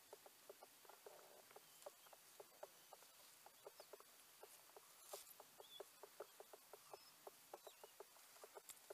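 Near silence in open country: a quiet outdoor hush with a quick, slightly irregular run of soft ticks, several a second, and a few faint high bird chirps.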